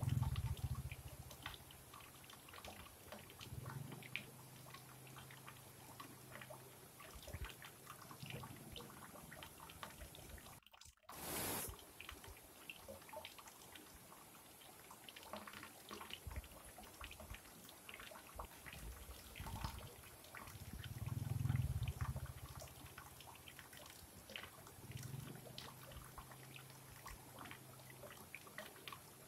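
Stream spilling over small rocky waterfalls, heard faintly as splashing and trickling with many small drips. A low rumble swells and fades several times, loudest at the start and about two-thirds through. Just over a third of the way in, the sound drops out briefly, then comes back with a short burst of noise.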